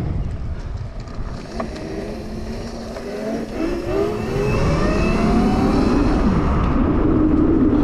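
Razor RSF650 electric dirt bike, converted with a 5000 W Electro & Co kit on a 72 V battery, accelerating: the motor and chain drive whine rises in pitch twice and then holds steady near the end, over wind rush on the microphone.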